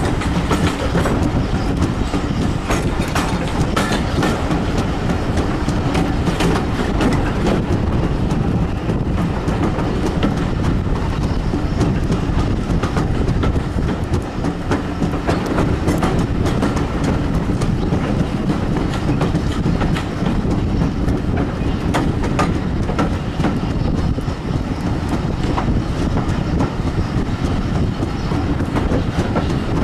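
Steam-hauled heritage railway carriage running along the line, heard from on board: a steady loud rumble of the coach on the track with irregular clicks and clacks of the wheels over rail joints.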